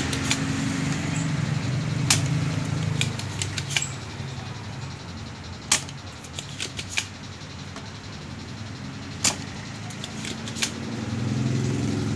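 A small engine running with a low steady hum that fades about four seconds in and comes back near the end. Over it come scattered sharp clicks and taps from the opened flat-screen TV's chassis and parts being handled.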